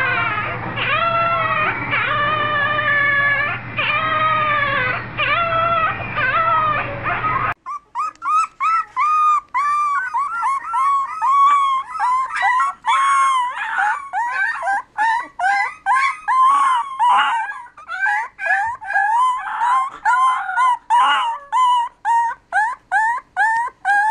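Young puppies howling. First a puppy gives long, drawn-out howls over a steady low hum. Then, about eight seconds in, beagle puppies take over with rapid, short rising yelps and howls, several a second.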